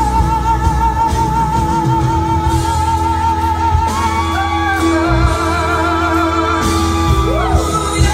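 A song with a singer: a long vibrato note is held for about four seconds, then the voice climbs to a higher held note, over steady bass and drums.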